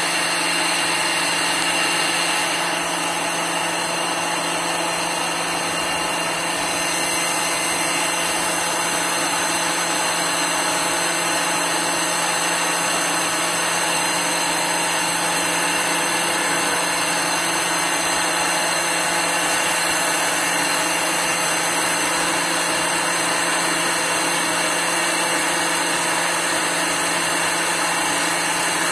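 CNC lathe turning a metal velocity-stack trumpet: the spindle and cutting tool make a steady machining noise with constant tones running through it.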